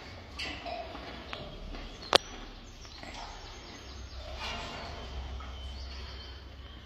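Gorilla chewing sweet potato: scattered soft clicks of eating, with one sharp click about two seconds in.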